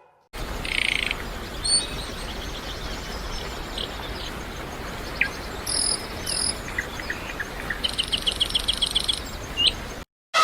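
Birds chirping and calling over a steady noisy background, with scattered short calls and a quick run of about ten chirps near the end; the sound cuts off suddenly just before the end.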